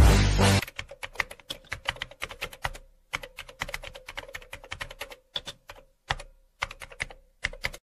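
Keyboard typing sound effect: rapid, irregular key clicks in short runs with brief pauses, over a faint steady hum. The tail of the intro's electronic music cuts off about half a second in.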